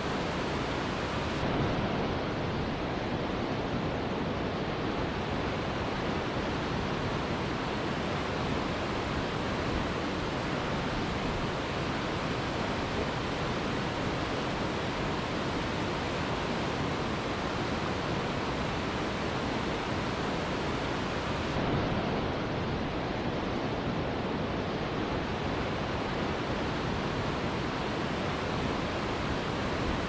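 Steady rush of a large waterfall: an even, unbroken noise of falling water with no music. The highest hiss dulls slightly about two seconds in and again about two-thirds of the way through.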